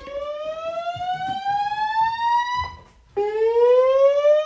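System Sensor SpectrAlert Classic fire alarm speakers, driven by analog AA-120 amplifiers, sounding a whoop evacuation tone: a loud rising sweep that cuts off and starts again from the bottom about three seconds in.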